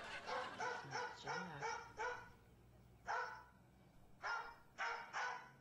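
A dog barking: a quick run of short barks over the first two seconds, then four more, spaced out.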